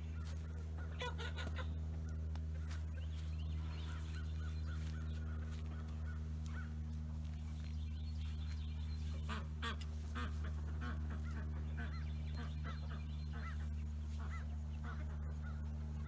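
A steady low mechanical hum runs throughout. Over it come scattered short bird calls and the rustle of hands and a trowel digging in loose garden soil.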